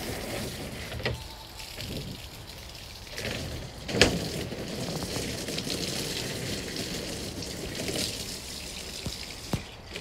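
Running water splashing and trickling as arms are washed off, with a few sharp knocks; the loudest knock comes about four seconds in.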